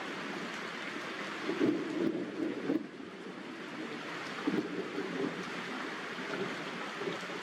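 Steady rain falling, an even hiss, with two louder rushing stretches, one about a second and a half in and another about four and a half seconds in.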